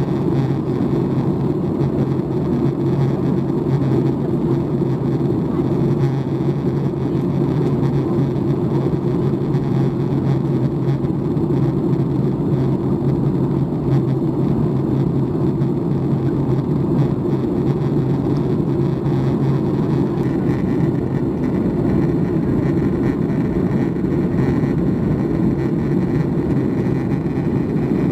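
Steady in-flight cabin noise of a Boeing 737 MAX 8 airliner: the CFM LEAP-1B engines and airflow heard from a seat over the wing, as an even low drone. A little more hiss joins in about twenty seconds in.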